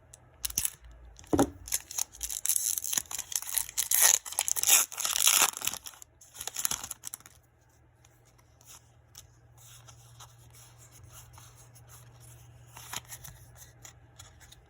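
A foil Pokémon booster pack wrapper being torn open and crinkled, loud and crackly for about the first seven seconds. After that only faint handling ticks are left over a low steady hum.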